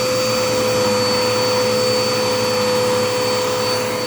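Dirt Devil Endura Reach vacuum cleaner running steadily, its motor giving a constant drone with a thin high whine over the rush of air.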